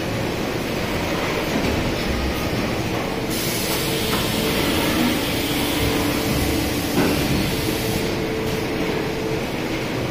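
Four-side sealing packaging machine running steadily: a continuous mechanical rumble with a faint hum. A hiss rises over it about three seconds in and drops away about eight seconds in.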